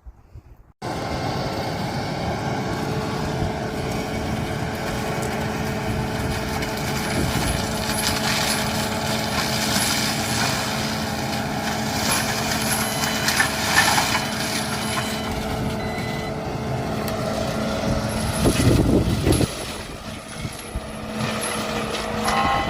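Sunward skid steer running a Niubo KBX 180 forestry mulcher head: a loud, steady heavy-machine drone with a constant hum, dipping briefly near the end.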